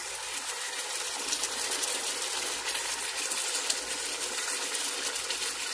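Mutton and masala sizzling in a hot nonstick karahi: a steady frying hiss with a constant fine crackle.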